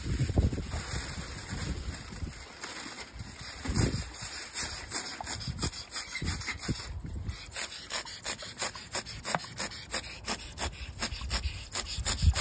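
Hand-held pump sprayer working over foil-wrapped pots: a string of short, sharp spritzes and pump strokes that come faster in the second half, with a few low rumbles in between.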